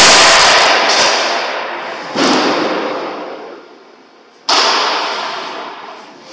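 3150-ton hydraulic open-die forging press working hot steel: three times, about two seconds apart, a sudden loud crack and hiss that fades away over a couple of seconds. The first is the loudest.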